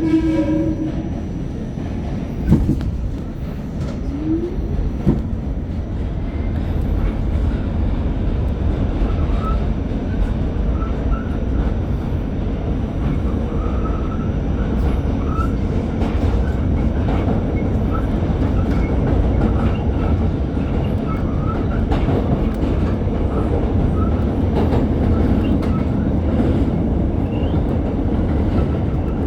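Train running along the track: a steady rumble with short high squeaks scattered through it, opening with a brief pitched tone.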